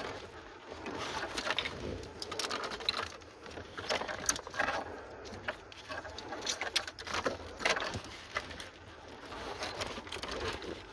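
Scattered clicks, scrapes and rustles of plastic wiring connectors and harness being worked loose from a 2003 Ford Expedition's fuse box.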